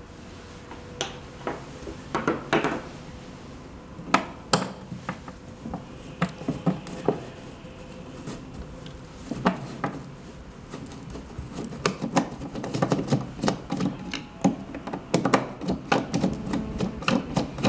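Irregular clicks, taps and light knocks of a screwdriver and metal parts being handled as the screws of a heat press's detector cover are taken out. The clicks come sparsely at first and grow busier in the last few seconds.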